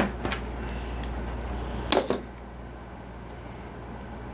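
Small screwdriver ticking and scraping against a plastic EC5 connector housing as a bullet connector is forced in: a sharp click at the start, a couple of lighter ticks just after, and a short clatter about two seconds in. The connector goes in without a clear snap.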